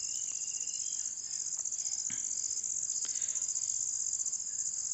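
Crickets chirring steadily in a high, rapid pulsing trill, with a couple of faint soft knocks about two and three seconds in.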